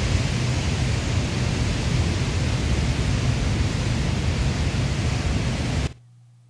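Steady rushing noise of the flooded Pigeon River, full of low rumble, cutting off abruptly near the end.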